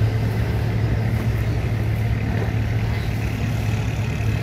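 Large diesel engine running steadily with a low, even hum, the sound of a boat engine on the waterway.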